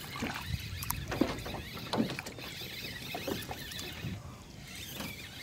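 Small irregular knocks and water sounds around a small aluminum fishing boat's hull, with scattered light ticks.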